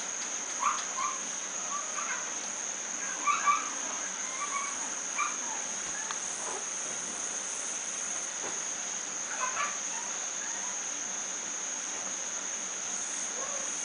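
Steady high-pitched insect drone, like crickets or cicadas, with a few short, sharp sounds scattered over it. The loudest of these come about three and a half seconds in.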